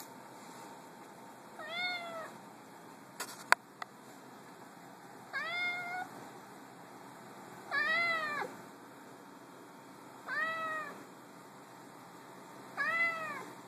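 Grey-and-white domestic cat meowing five times, about every two and a half seconds, each meow rising then falling in pitch: insistent meows begging to be picked up. A single sharp click falls between the first and second meows.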